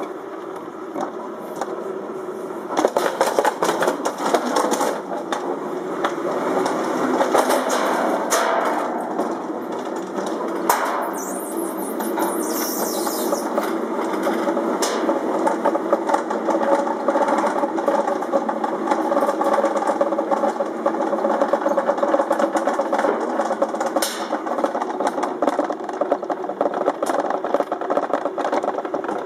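Alpine coaster sled running along its metal rail track: a steady rolling rumble and rattle of the wheels on the rails, with scattered knocks.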